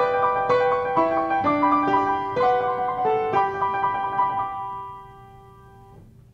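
Piano playing a simple melody of single notes. The playing stops about four and a half seconds in and the last notes ring on, fading out.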